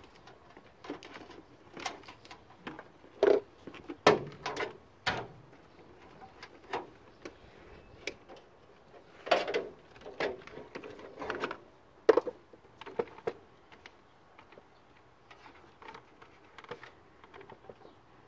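Irregular clicks, knocks and light rattles of hands and a hand tool working on hoses and fittings around a supercharger in an engine bay, with a few sharper knocks scattered through.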